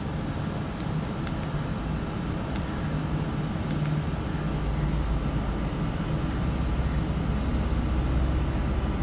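Steady low rumbling background noise that grows a little louder about halfway through, with a few faint clicks.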